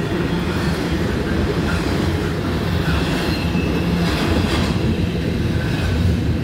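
CSX intermodal freight train's well cars and trailer-carrying flatcars rolling past at speed: a steady rumble and clatter of steel wheels on the rails.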